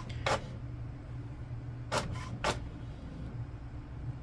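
HP Envy Photo 7855 inkjet printer running as it prints a page: a steady low motor hum, with a sharp click near the start and two more about two seconds in.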